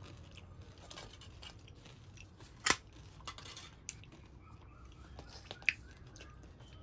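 Light clicks and taps from handling sweets and a small plastic chocolate cup on a plate, with one sharp click about two and a half seconds in and a few fainter ticks after it.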